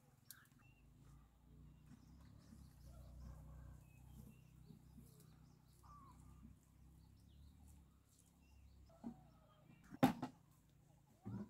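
Quiet farmyard ambience: faint bird chirps over a low steady rumble, with one sharp knock about ten seconds in.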